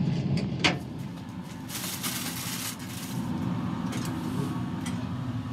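Aluminium foil crinkling as it is folded back up around the meat, most strongly for about a second near the middle, with a few light clicks and knocks.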